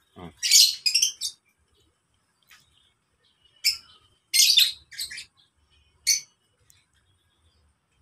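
Lovebirds chirping: sharp, high-pitched chirps in short bursts, one cluster just after the start and several more in the middle, with quiet gaps between.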